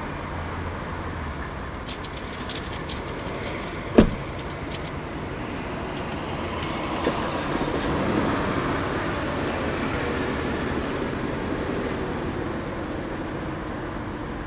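A car door shuts with one loud thud about four seconds in, heard from inside the cabin. A few seconds later the Audi A8's 4.2-litre FSI V8 starts, its revs flaring and then falling back to a steady idle.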